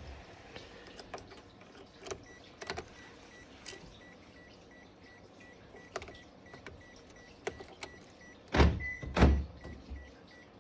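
Daihatsu Move L185S power door locks actuating twice in quick succession near the end: two loud thunks about half a second apart. A faint rapid beeping runs from about two seconds in, with small faint clicks.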